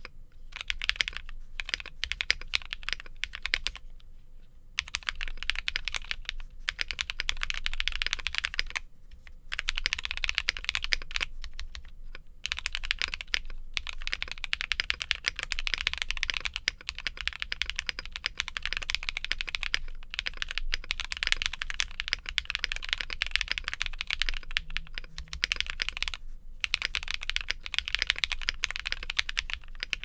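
Fast, continuous typing on a Monsgeek M2 mechanical keyboard with lubed Akko Snow Blue Gray linear switches on a polycarbonate plate, built without PE foam or case foam. Dense key clicks broken by a few brief pauses, the longest about four seconds in.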